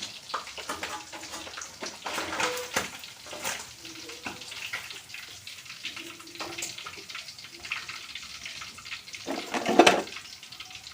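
Kitchen work: utensils and cookware clattering and knocking over a steady hiss, with one louder clatter near the end.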